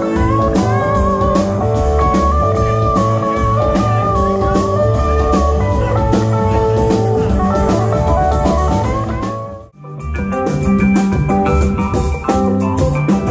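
Live jam band playing: electric guitars, bass and drum kit, with a lead guitar line bending and wavering over the top. The sound drops out for a moment about ten seconds in and comes back on another passage, with keyboard in the mix.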